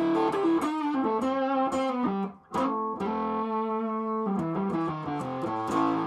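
Electric guitar played through the Hoover Hog overdrive pedal with its gain cranked almost into fuzz. Distorted chords are strummed and left to ring, with a short break a little over two seconds in.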